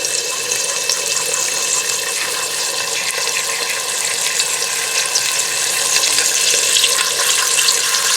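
Chicken skin and fat pieces frying in a pan with a little cooking oil, rendering out their fat as they brown: a steady sizzle with fine crackles.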